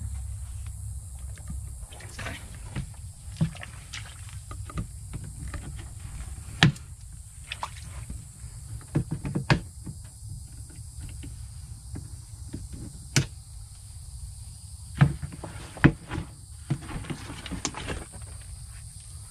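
Scattered knocks and clunks, a dozen or so sharp ones, over a low rumble, with a steady high insect drone behind.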